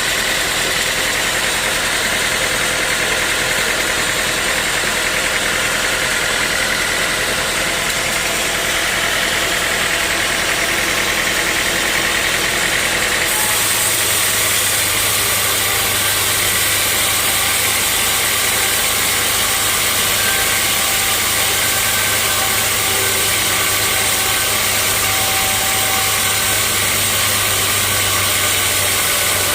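Sawmill machinery running steadily with a loud engine-like drone. About thirteen seconds in the sound changes abruptly and a deeper steady hum takes over.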